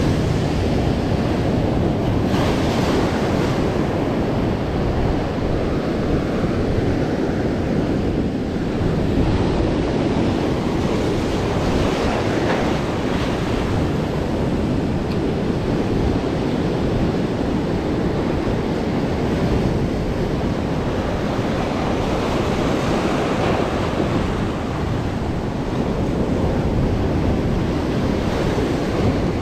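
Rough sea surf breaking and washing over shore rocks in a steady rush, with wind buffeting the microphone.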